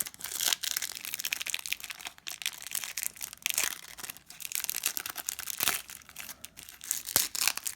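Cellophane wrapper of a trading-card pack crinkling and crackling as it is handled and torn open.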